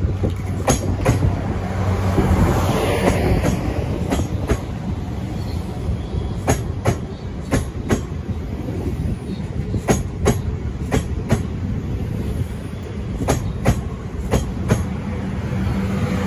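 A South Western Railway Siemens Desiro electric multiple unit passes at moderate speed. Its wheels click in pairs over the rail joints, one click for each axle of a bogie, under a low steady hum from the train.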